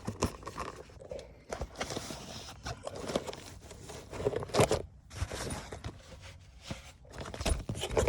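Irregular rustling, clicks and short knocks of things being handled, with a couple of louder knocks midway and near the end.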